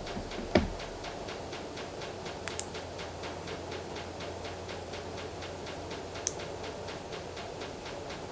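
Steady hum with a fast, even ticking, about five ticks a second. A sharp knock with a short ring about half a second in, then two small high clicks later on.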